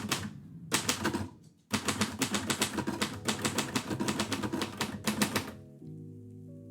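Typewriter being typed on: a couple of short bursts of keystrokes, then a fast run of key strikes lasting about four seconds that stops a little before the end.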